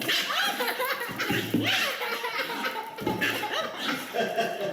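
Laughter in bursts, with some voices.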